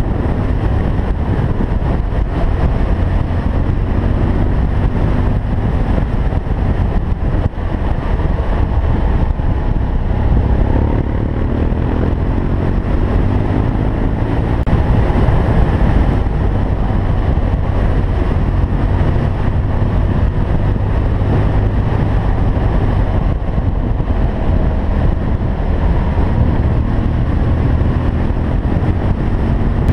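BMW R1200GS boxer-twin engine running while riding, its pitch drifting up and down a little, with wind on the microphone.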